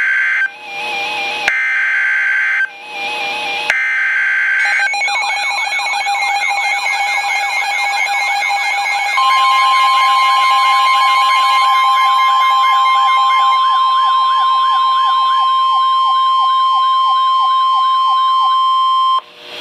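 NOAA Weather Radio Emergency Alert System tones: three short buzzing SAME data bursts about a second apart. These are followed by warbling, siren-like tones, and from about nine seconds in a steady 1050 Hz weather radio alert tone sounds for about ten seconds, signalling that a warning message follows.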